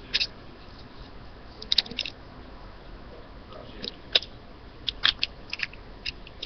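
Paper and tape being handled up close while a small paper wrapper is taped around a miniature can form: irregular short crinkles and clicks over a faint hiss.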